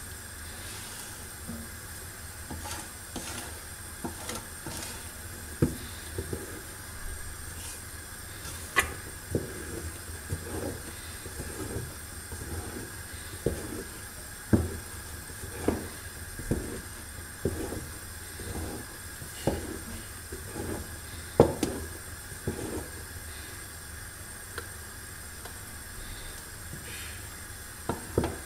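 Wooden spoon stirring a thick sesame-and-hazelnut paste in a large aluminium pot, knocking irregularly against the pot about once a second, over a steady hiss.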